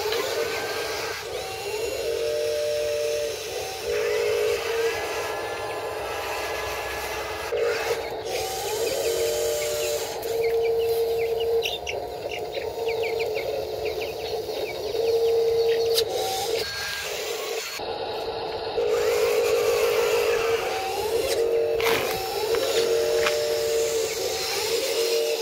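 Electric motors of a Huina 583 RC wheel loader whining in stop-start bursts as it drives and works its arm and bucket.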